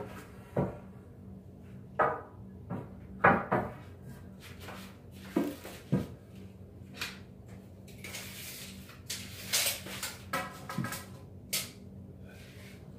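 Long wooden boards knocking against each other as they are shifted by hand: a string of separate wooden knocks, the loudest about three seconds in.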